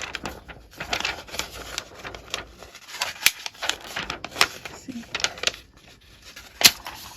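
Sheets of stiff vellum paper being handled, with irregular crisp crackles and snaps and one sharper snap near the end.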